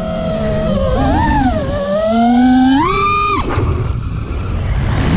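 FPV racing quadcopter's T-Motor F40 Pro II brushless motors whining, the pitch sliding up and down with the throttle over a steady rush of prop wash. The whine climbs to a peak about three seconds in, cuts off abruptly as the throttle is chopped, and starts rising again near the end.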